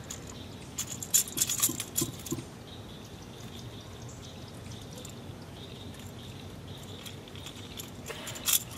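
Metallic clicking and jingling of fishing pliers against a Rat-L-Trap lure's treble hooks and internal rattles as a deeply hooked largemouth bass is worked free. A cluster comes about a second in and a shorter one near the end.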